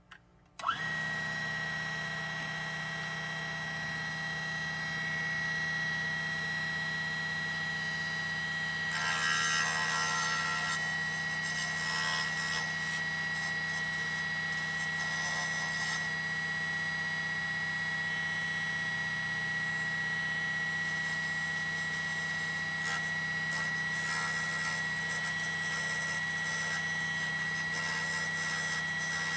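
A small diamond-blade table saw starts up about half a second in and runs with a steady high whine over a low motor hum. From about 9 to 16 seconds in, a gritty grinding hiss rises over it as the blade cuts around the glass of a vacuum tube, with briefer grinding later.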